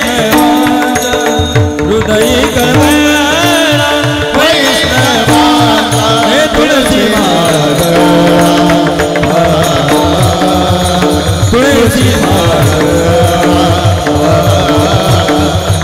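Varkari kirtan music: a mridang drummed in steady rhythm with several pairs of small brass hand cymbals (taal) clashing on the beat, under a sustained melody line.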